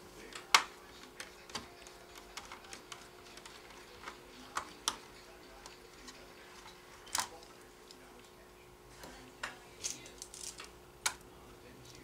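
Small irregular clicks and taps of a precision screwdriver and fingers on a laptop's plastic chassis and internal parts as screws are taken out, the loudest click about half a second in.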